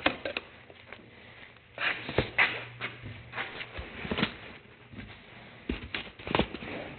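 Handling noise: irregular clicks, knocks and rustles of objects being moved about, with a brief low hum a little after two seconds in.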